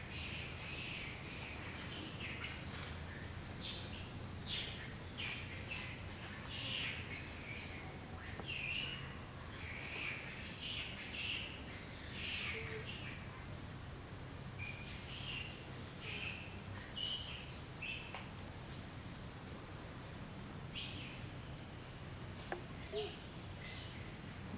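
Small birds chirping in short repeated calls, about one a second at first and sparser later, over a steady thin high drone of insects.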